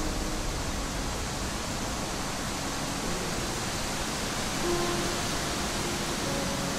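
Quiet ambient soundtrack music: a steady hiss-like wash of noise with a few faint held notes, one about two-thirds through and more coming in near the end.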